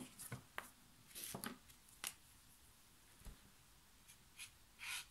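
Faint clicks and taps of plastic brush-pen markers being handled and picked up off the table, with a couple of short soft rustles against the paper.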